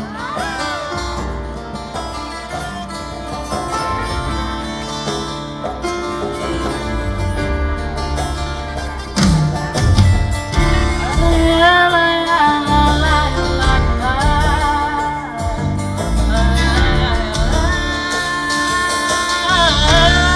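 Live concert music: guitar-led instrumental introduction, with a wordless sung melody coming in about halfway through as the music grows louder.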